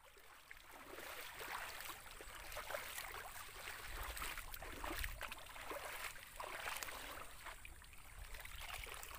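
Shallow muddy pond water splashing irregularly as people wade through it and push a hand scoop net through it, many small splashes one after another.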